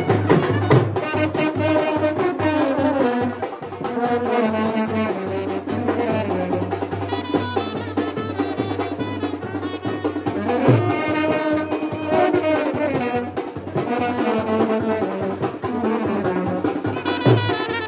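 Brass band playing a tune: trumpets and larger brass horns carrying the melody over a steady low bass note and drum beats.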